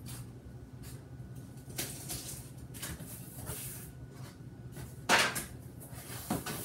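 Cardboard shipping box being opened by hand: the flaps scrape and flex in short rustling bursts, with one sharp, louder rasp about five seconds in.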